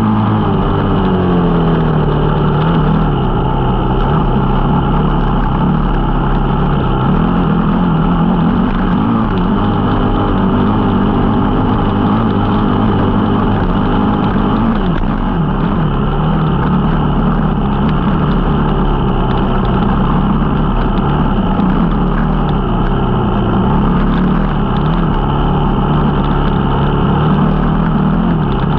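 Off-road dirt bike engine running under load while riding, its pitch rising and falling repeatedly as the throttle is worked.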